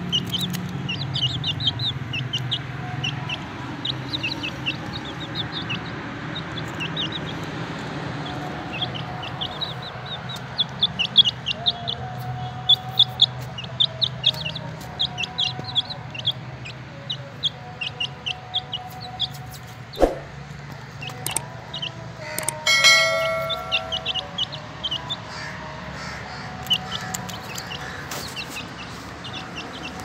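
Chicken chicks peeping in many short high chirps, several a second, with a louder harsh call about 23 seconds in.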